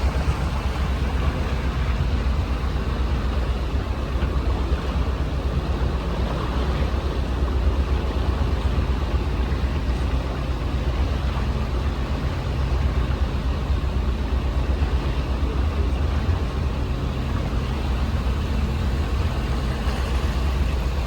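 Boat motor running steadily underway: a constant low engine drone with a noisy hiss of wind and water over it.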